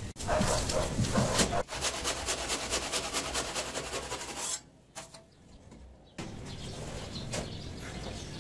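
Rapid, even rubbing and scraping strokes that stop about four and a half seconds in, followed by a short lull and then a fainter steady background noise.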